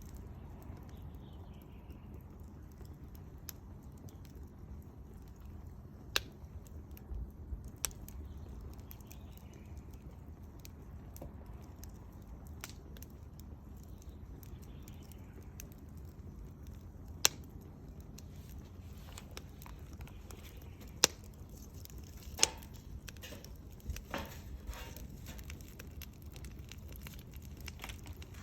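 Wood fire crackling, with scattered sharp pops every few seconds; the loudest pops come in the second half.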